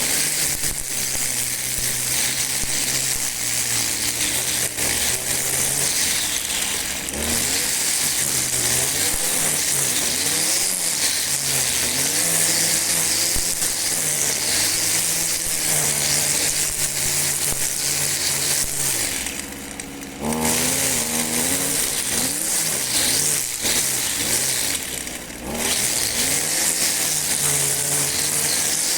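Two-stroke gasoline string trimmer running under load, its engine pitch rising and falling as the throttle is worked, over a steady high hiss. The engine drops back briefly twice, about two-thirds through and again later.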